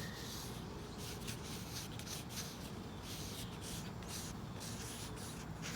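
Oil pastel rubbing and scratching on paper in a series of short, irregular strokes as a small flower is sketched.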